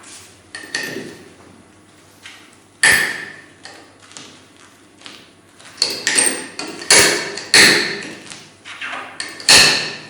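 Tungsten carbide inserts clicking and clinking as they are set one at a time onto a strong neodymium magnetic chuck and pushed against its stop. The clicks are sharp and metallic, with a short ring, coming at irregular intervals and most thickly in the second half.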